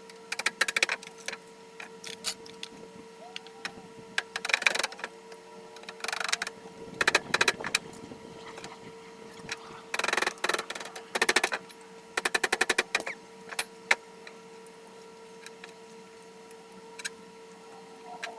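Fluorescent-light ballasts being broken apart for their copper: several short bursts of rapid metallic clattering knocks over a steady hum.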